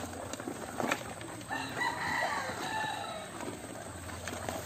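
A rooster crows once, a drawn-out call of nearly two seconds starting about a second and a half in. Before it come a few short clicks and rustles from crabs and dry leaf strips being handled in a plastic bucket.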